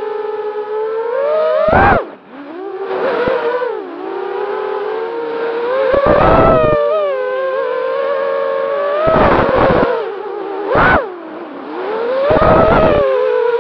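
Brushless motors and propellers of a 250-size racing quadcopter (DYS MR2304 2150 kV motors on a 3S battery) whining as heard from its onboard camera, the pitch gliding up and down with the throttle. About six short, louder rushes mark bursts of throttle.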